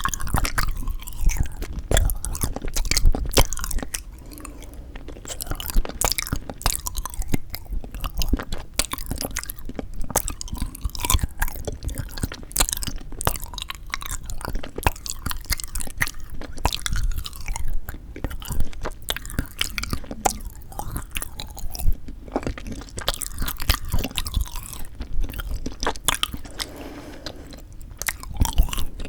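Close-miked chewing and biting of frozen sweet red bean jelly (yanggaeng), a dense run of many quick, sharp clicks and crackles that is busiest in the first few seconds.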